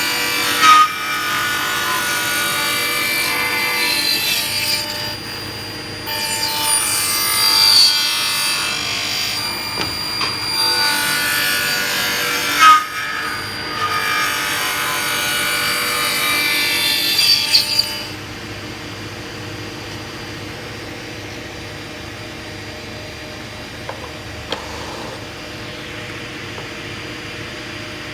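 Power saw cutting wood, loud in stretches with short breaks, then running on more quietly without cutting from about two-thirds of the way through.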